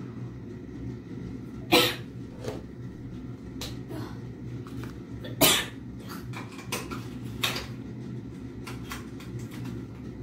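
A woman with a long-standing unexplained cough coughs twice, a few seconds apart, shortly after a steroid inhaler dose. Small clicks of handling come between, over a steady low hum.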